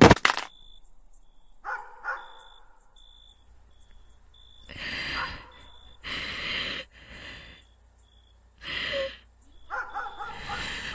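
Music cuts off abruptly at the start, leaving night ambience. A high insect chirp repeats in short, evenly spaced pulses, and dogs bark in the distance several times, more often near the end.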